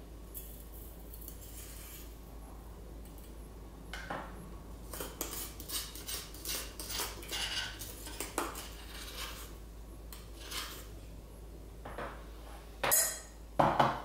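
Hot water poured from a gooseneck kettle into a stainless steel pour-over cone over a glass mug, with scattered light clinks of metal and glass. The clinks come thickly in the middle and a couple of louder ones come near the end.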